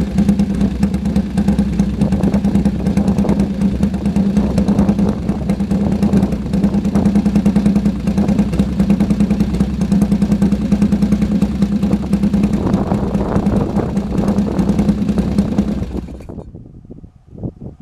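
Freshly fully rebuilt sidecar motorcycle engine on its first run, idling steadily, then shut off about sixteen seconds in.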